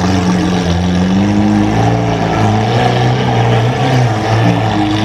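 Lamborghini Aventador S V12 with an 18-karat gold exhaust, running at low revs as the car pulls slowly away. It makes a steady, deep drone whose pitch rises and falls a little.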